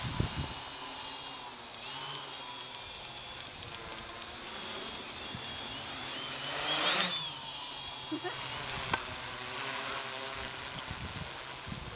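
3D Robotics quadcopter's electric motors and propellers buzzing in flight, the pitch wavering as the throttle changes.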